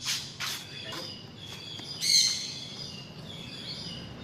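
Sun conure calling: two short shrill calls at the start, then a louder, harsher squawk about two seconds in.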